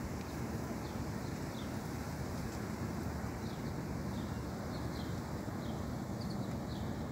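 Steady low outdoor rumble of wind and distant city traffic, with faint short high chirps repeating every second or so.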